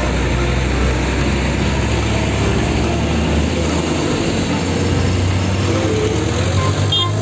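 Heavy vehicle engine running steadily, a low hum under constant rushing noise, like a large truck driving.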